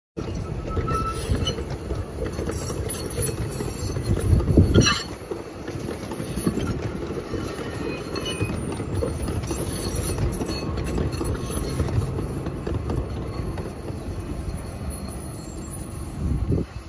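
Loaded narrow-gauge sugarcane bins rolling past on the rails, a steady rumble and clatter of wheels on track. There is a louder clank about four and a half seconds in and a smaller one near the end.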